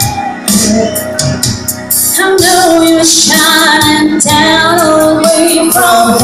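A woman singing a slow ballad live over backing music with a light beat. Her voice comes in loud about two seconds in, with long held notes that waver in pitch.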